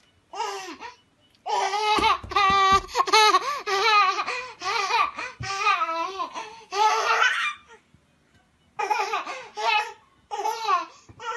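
Toddler laughing in high-pitched bursts: a long run of giggling through the middle, then a pause and two shorter bursts near the end.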